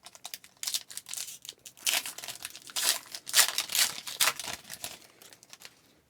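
Hockey card pack wrapper being torn open and crinkled in the hands, an irregular crackling rustle with sharp tearing spikes.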